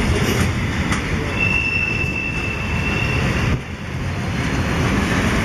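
Freight train passing close by: wagon wheels rumbling steadily on the rails, with a high, steady wheel squeal lasting about two seconds near the middle.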